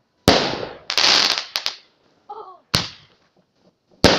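Fireworks going off: a sharp bang shortly after the start, then a loud burst with rapid crackling about a second in, and two more sharp bangs later, each fading away.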